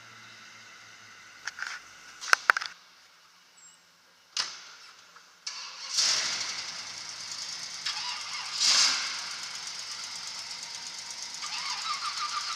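A few sharp metallic clanks, then a car engine starts about six seconds in and keeps running, swelling briefly near nine seconds and echoing through a large hall. A fast rattling tick joins near the end.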